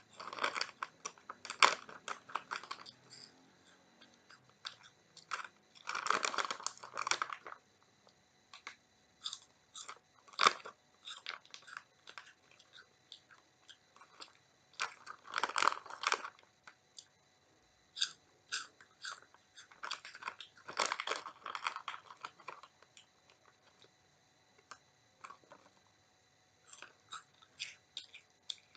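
A child crunching and chewing Oriental Super Ring puffed corn snack rings close to the microphone. The crunching comes in bursts of crisp cracks a second or two long, about every four to five seconds, with quiet pauses between.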